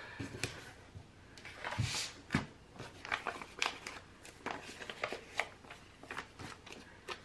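Paper sticker sheets and planner pages being handled: a scatter of short paper rustles and light taps as full-box stickers are peeled off and pressed onto the pages, loudest about two seconds in.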